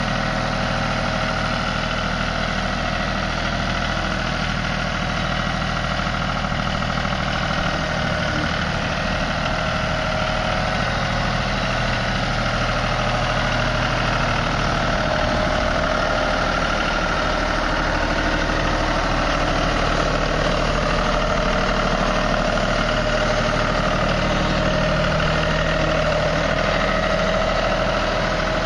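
John Deere 5303 tractor's three-cylinder diesel engine running steadily as the tractor is driven, growing a little louder in the second half.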